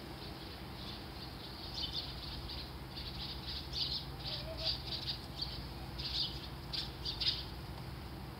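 Wild birds chirping: a run of short, high calls starting about two seconds in and stopping shortly before the end, over a steady low background hum.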